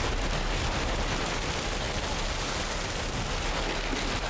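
Heavy rainstorm: a steady, dense crackle of rain and wind beating on plastic sheeting.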